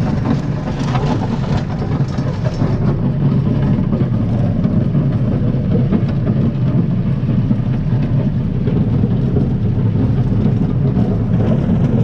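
Compact tractor engine running steadily as the tractor drives along in a higher gear, growing a little louder over the first couple of seconds.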